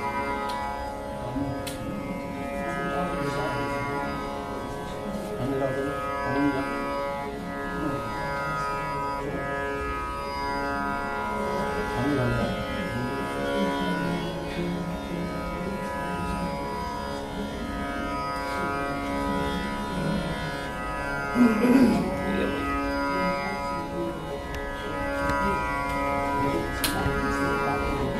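Indian classical string instruments being tuned over a steady sustained drone, with short sliding plucked notes moving over it. A brief louder gliding swell comes about three-quarters of the way through.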